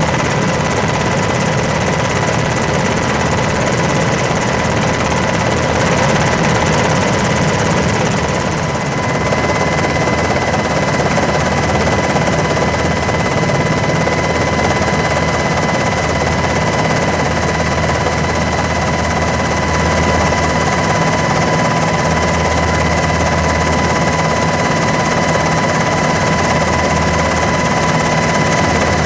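Steady helicopter rotor and turbine noise heard from aboard an aircraft in flight: a deep rumble that swells and eases slowly, under a thin steady high whine.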